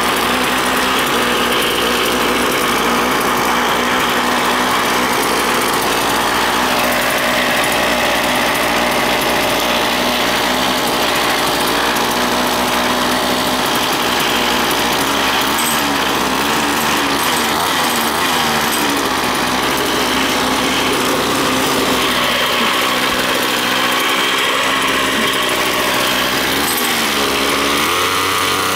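Ryobi full-crank two-stroke string trimmer engine running. It is steady at first, and its pitch wavers up and down through the second half.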